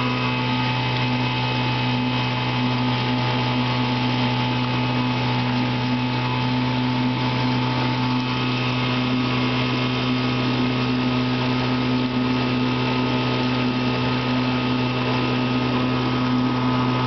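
1958 Johnson 5½ hp two-cylinder two-stroke outboard motor running at a steady throttle, driving the boat along, its pitch holding even throughout.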